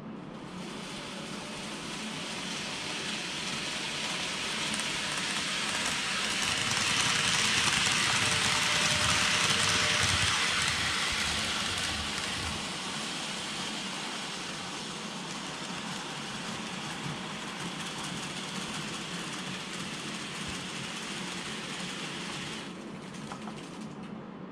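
KATO 117-series N-gauge model train running on model track, a steady rumbling whirr of small wheels and motor. It grows louder from about six seconds in, peaks around ten seconds, then eases back to a steady level.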